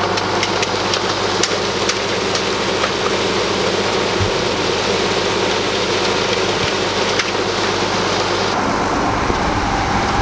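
Case IH 7140 tractor's six-cylinder diesel engine running steadily, with scattered faint clicks over it.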